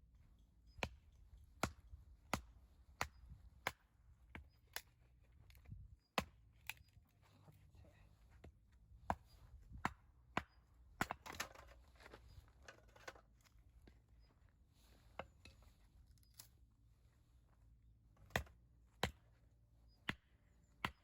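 Repeated sharp chopping knocks, roughly one every 0.7 seconds, with a denser flurry about halfway through and a few more spaced strikes near the end.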